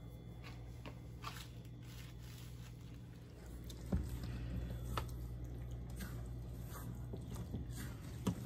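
Silicone spatula stirring crushed pineapple and pistachio instant pudding mix in a stainless steel bowl: soft wet squishing with scattered scrapes and clicks against the bowl.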